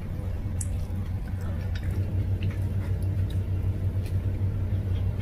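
Steady low hum, with faint small clicks and mouth sounds from eating rice by hand: fingers working rice on a plate, then chewing.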